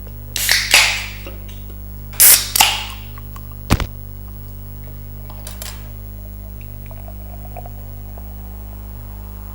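Carbonated soft-drink bottle caps being twisted open: two sharp hisses of escaping gas, one about half a second in and one a little after two seconds, each fading quickly. A sharp click follows near four seconds, over a steady low hum.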